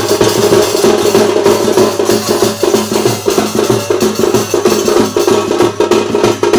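Large brass hand cymbals clashing rapidly over a steadily beaten drum, a dense, loud folk percussion rhythm that never breaks.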